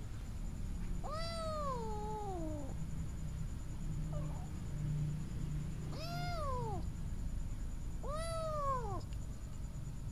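A cat meowing three times: first a long call that rises briefly and then falls, then two shorter arched calls a couple of seconds apart near the end.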